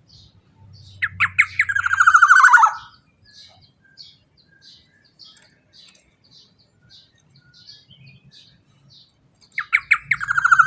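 Black-naped oriole (kepodang emas) calling: a loud, harsh phrase of a few sharp notes running into a fast series that falls in pitch, given again about nine seconds later. In between come faint, short, high chirps about twice a second.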